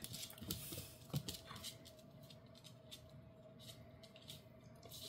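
A golden retriever and a small dog playing on a laminate floor: faint clicks and patter of claws and paws, with a short low thump about a second in, then fainter scattered ticks.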